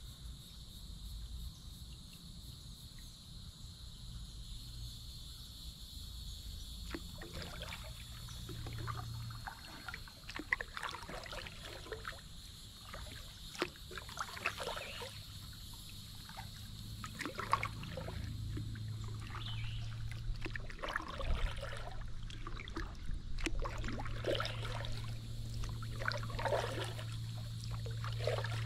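Water splashing and trickling as a kayak is paddled, in irregular strokes that start about seven seconds in, over a steady high buzzing background.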